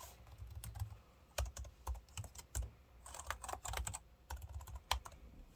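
Typing on a B.Friend RB730 scissor-switch keyboard: key clicks come in irregular runs, with short pauses between them.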